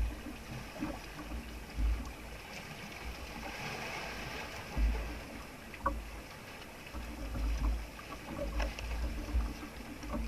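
Open-sea ambience aboard a small outrigger fishing boat: gusty wind buffeting the microphone over a steady wash of water, with a couple of faint knocks about six and nine seconds in.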